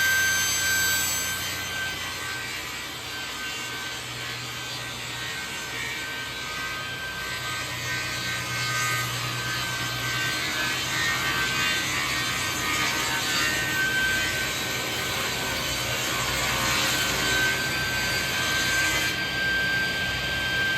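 Power saw running steadily as it rips through an old wooden beam to mill it into planks, with a constant motor hum and a steady high whine under the cutting noise.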